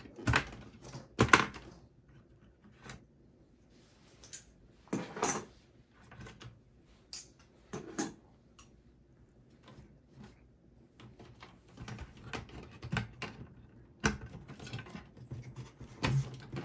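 Irregular plastic and metal clicks and knocks as DDR4 memory modules are unlatched and pulled from their motherboard slots, then cables are handled inside the steel desktop case. The loudest clicks fall near the start and again around the middle and end.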